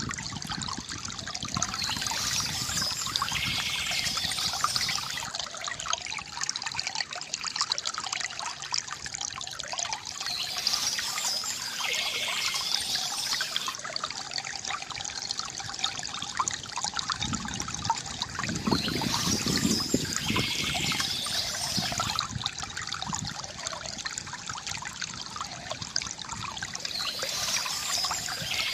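Water running steadily from a bamboo fountain, trickling and gurgling, with a fuller low gurgle swelling briefly past the middle. Above it, birds chirping come and go about every eight seconds.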